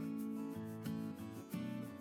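Background instrumental music: a melody of pitched notes, each held for about half a second before the next.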